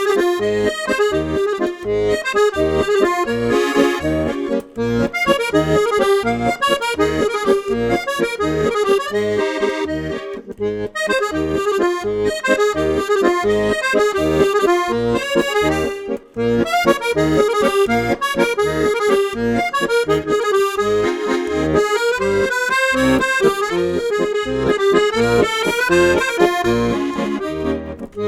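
Accordion music with a steady bass beat, a lively tune in a traditional style.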